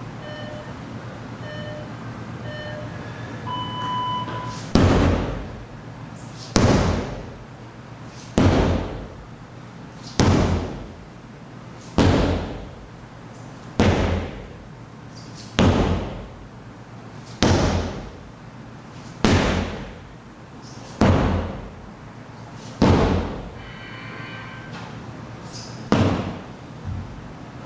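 An interval timer counts down with three short beeps and one long beep, then a sledgehammer strikes heavily about once every two seconds, about a dozen blows in all, the start of a tabata work interval. The timer sounds again near the end of the strikes.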